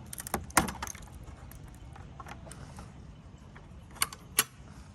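Small metal clicks and clinks, as of tools or hardware being handled: a quick run of clicks in the first second, then two sharp clicks about four seconds in.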